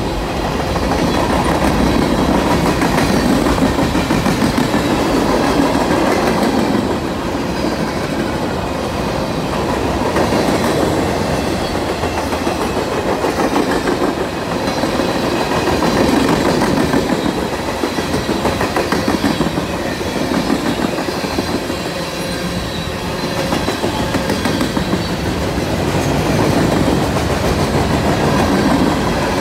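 Freight cars of a passing manifest train rolling by close up: steel wheels clacking over the rail in a continuous rapid rhythm, loudness swelling and easing every few seconds as cars pass, with a faint steady high whine under it.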